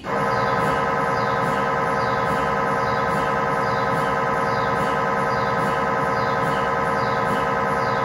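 GE MRI scanner's gradient coils running a lower-leg scan sequence: a loud, steady electronic buzz of several tones that kicks in at the start. A faint higher chirp repeats about every three quarters of a second.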